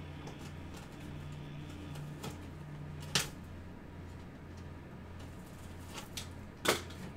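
Two sharp clicks about three and a half seconds apart as a cardboard packaging tube is handled, over a steady low hum.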